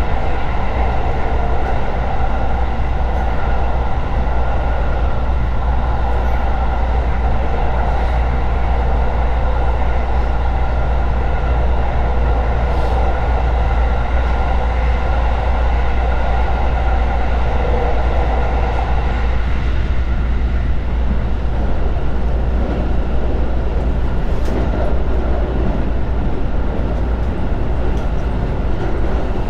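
Running noise inside a JR Joban Line electric local train in motion: a steady low rumble of wheels on rail with a faint steady hum on top. The sound changes about two-thirds of the way through.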